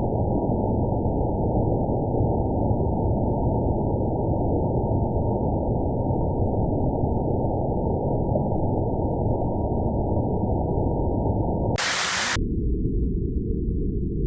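Hail falling, its sound slowed down with the slow-motion footage into a low, steady rumbling hiss. About twelve seconds in there is a brief stretch of full-range hiss, after which the sound drops lower still.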